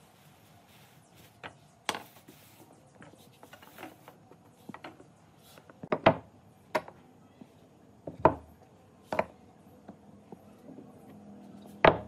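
Thick wooden tree-trunk slices and cut wooden blocks set down one by one on a plastic-sheeted workbench: a series of sharp wooden knocks, the loudest about six seconds in, around eight seconds in and at the very end. Light rustling of the plastic sheeting comes first.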